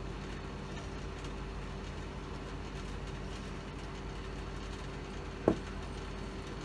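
Rice paper being torn into small pieces by hand, a faint soft rustle over a steady low hum. One sharp click about five and a half seconds in.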